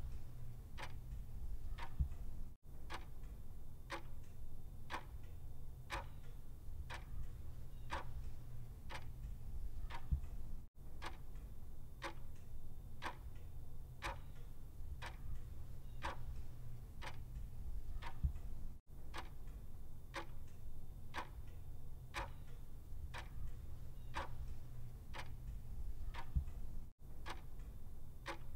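Clock ticking sound effect: even, sharp ticks about two a second over a steady low hum, with a brief dropout about every eight seconds where the looped recording restarts.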